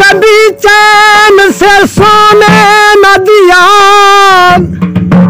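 Male singer in a Punjabi folk song holding long drawn-out notes with wavering, ornamented turns of pitch. The held singing stops a little before the end, where a few drum strokes come in.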